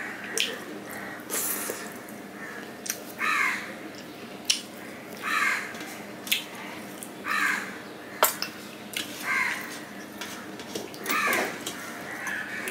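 A crow cawing repeatedly, one harsh caw about every two seconds, over close wet smacking and clicking sounds of eating rice and curry by hand from a steel plate.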